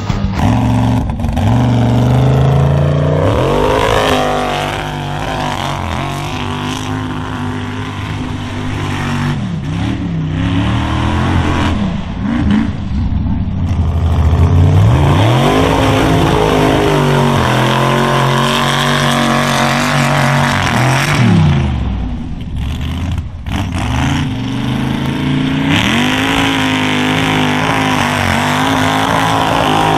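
Small lifted pickup mud truck's engine revving hard, its pitch rising and falling over and over as it drives through the mud.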